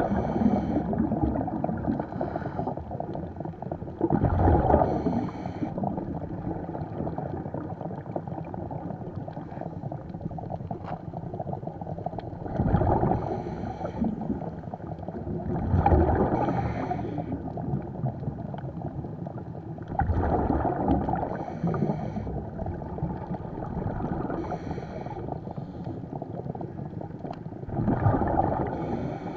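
Scuba diver breathing through a regulator underwater: short hissing inhales alternate with loud rumbling bursts of exhaled bubbles, several breaths a few seconds apart, over a steady underwater rumble.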